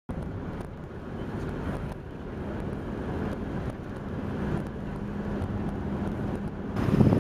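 Road noise inside a vehicle driving along a sealed highway: a steady rumble of tyres and engine with a faint low hum. Near the end it cuts to louder wind buffeting the microphone.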